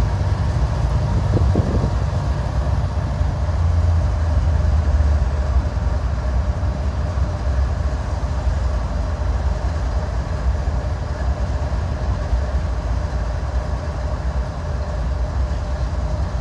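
CSX 879, a GE diesel-electric locomotive, running close by: a steady low engine rumble with a thin steady whine above it.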